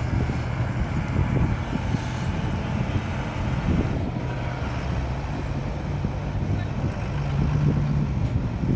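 Vehicle engines running steadily at low revs, a deep hum that rises slightly in pitch near the end.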